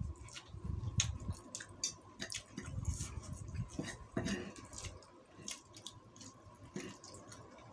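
Close-up eating sounds: chewing nasi uduk and fried tofu, with a metal spoon and fork clicking and scraping on a paper-lined plate. The chewing is heaviest in the first five seconds, and the utensil clicks are scattered throughout.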